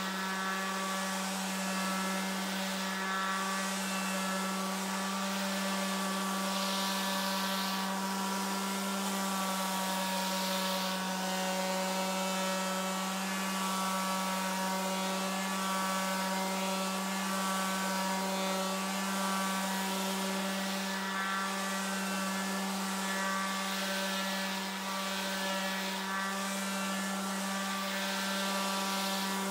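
TOTAL TF1301826 electric finishing sander running steadily under load, its sanding pad scrubbing over an old painted wooden board: a constant hum with a hiss of sandpaper on wood.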